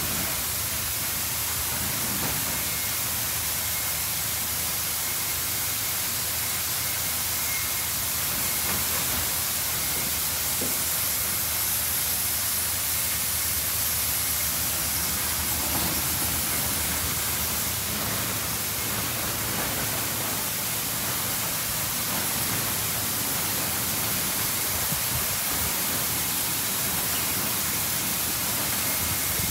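Mark VII Merchandiser in-bay automatic car wash spraying water over a car: a steady hiss of spray.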